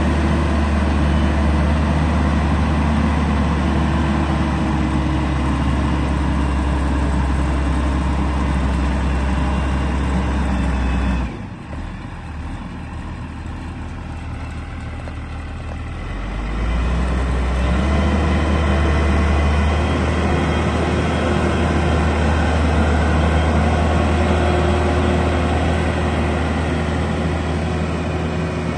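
Huddig 960 C6 backhoe loader's diesel engine running with a steady low rumble. About eleven seconds in it drops suddenly to a quieter level for about five seconds, then rises back.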